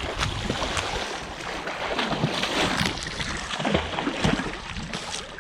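Water splashing and sloshing close by, a dense crackling spatter with many small splashes and no single big impact.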